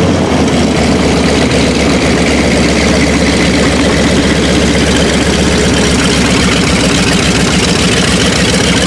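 An engine running steadily at a constant speed, a low drone that does not change.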